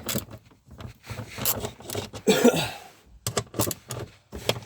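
Irregular clicks, knocks and rubbing of tools and car trim parts being handled, with a brief vocal sound a little past two seconds in.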